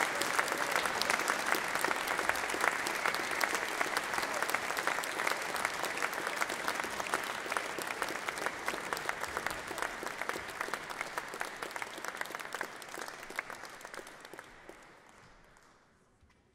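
Audience applauding, the clapping fading away over the last few seconds.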